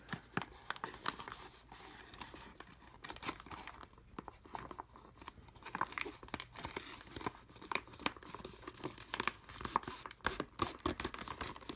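Foil-lined freeze-dried meal pouch crinkling and crackling in the hands as its zip-lock top is pressed shut, a run of irregular crackles.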